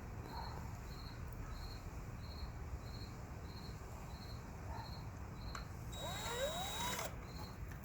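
Cricket chirping in a steady rhythm, a bit under two chirps a second. About six seconds in, a brief sound with a gliding, rising-and-falling pitch is heard.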